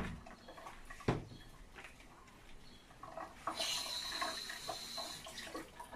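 Water running from a kitchen tap into a stainless-steel sink while dishes and a plastic cutting board are washed by hand. A single knock of dishware comes about a second in, and the water noise grows louder for about a second and a half past the middle.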